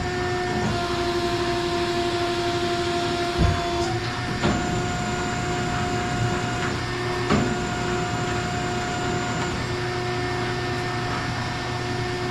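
Plate rolling machine running with a steady motor whine as its rolls bend a flat steel plate into a curve, the pitch shifting now and then as it works. A few knocks from the plate and rolls come along the way.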